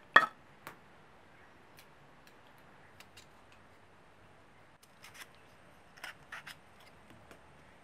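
A knife cutting chunks off a peeled potato held in the hand, with a few short, sharp snicks spread out and a cluster near the end as the pieces drop into a clay pot of spiced chicken. A single louder knock comes right at the start.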